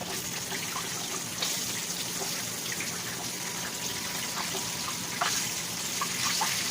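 Breaded chicken nuggets frying in hot oil in a frying pan: a steady sizzle with scattered crackling pops. The sizzle surges about a second and a half in and again around five seconds, as more nuggets go into the oil.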